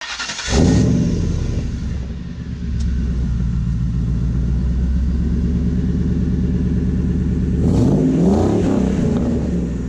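A car engine running steadily at idle with a deep, even note, revved up and back down once near the end.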